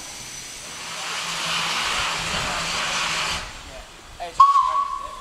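Steam hissing from a locomotive, stopping abruptly about three and a half seconds in. Then a steam locomotive's whistle sounds one short, steady high note for about a second, the loudest sound here.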